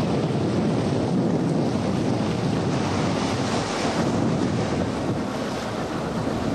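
Steady rush of wind buffeting the microphone and water churning along the hulls of boats running side by side at speed, with no distinct engine note standing out.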